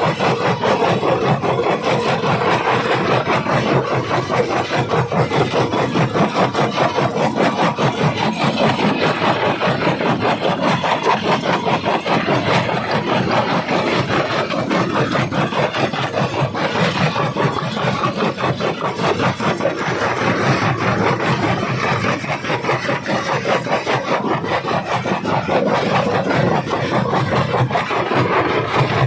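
Jaw rock crusher crushing stone: a loud, continuous grinding and crunching with a fast pulsing rhythm.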